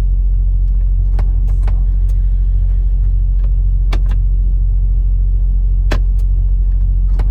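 Steady low rumble of an idling engine, with a few sharp clicks, about one, four, six and seven seconds in.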